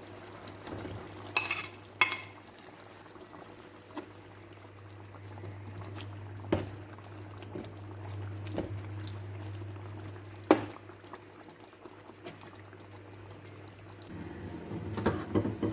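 A metal utensil clinks twice against a cooking pot, ringing briefly, then knocks a few more times at intervals while food is added to the liquid soup and stirred. A steady low hum runs underneath.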